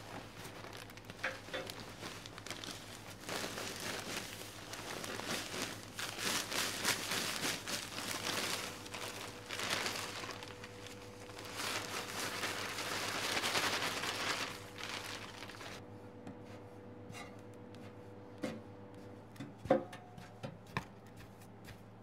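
Sawdust pouring from a plastic sack into a stove's metal feed hopper: a dense rustling with the bag crinkling, lasting until about two-thirds of the way through. Then the sound drops and a handful of short knocks follow as the sawdust is packed down with a ram.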